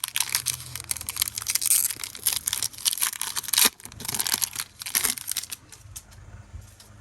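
A foil Pokémon card booster pack wrapper being torn open and crinkled. There is dense crackling for about five and a half seconds, loudest about halfway through, then it dies down.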